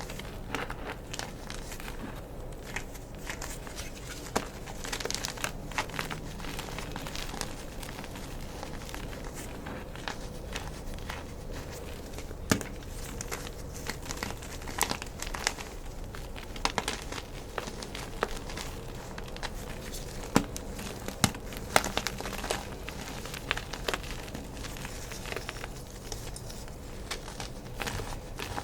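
Gym chalk being crushed and crumbled by hand: a continuous irregular crackling and crunching with scattered sharper snaps, a few louder ones in the middle and later on.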